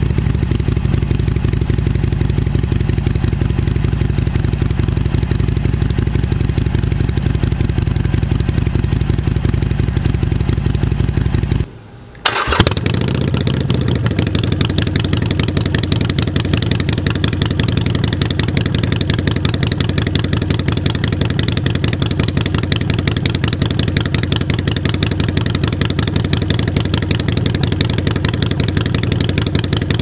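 Harley-Davidson Iron 883's air-cooled V-twin idling steadily through its stock exhaust. About twelve seconds in the sound drops out briefly, followed by a sharp loud burst. After that the same bike idles steadily through Vance & Hines Short Shots pipes with a V&H air cleaner.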